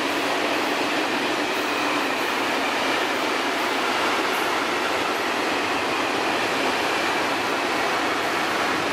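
Steady rolling noise of a long freight train of open coal wagons passing on steel rails.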